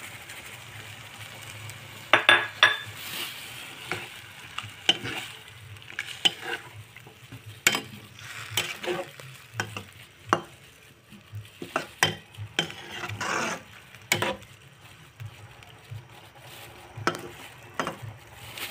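A spatula stirring vegetables in a non-stick wok, with irregular scrapes and knocks against the pan and a denser clatter about two seconds in as spring onions are tipped in and folded through the bean sprouts, tofu and broth.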